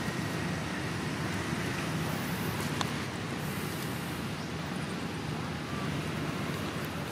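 Steady outdoor background rumble and hiss, with one sharp click about three seconds in.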